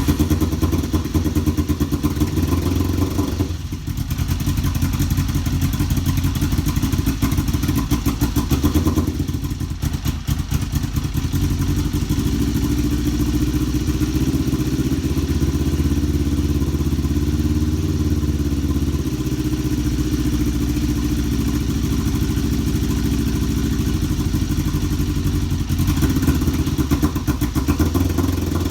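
Kawasaki EX500's parallel-twin engine idling roughly, just after being started for the first time in a couple of years. The sound dips briefly about three and a half seconds in and again around nine seconds.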